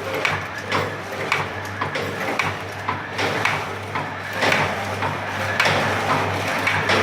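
Granule-filling packing machine with four-side sealing running: a steady electrical hum under regular mechanical clacks about two a second as it doses and seals sachets.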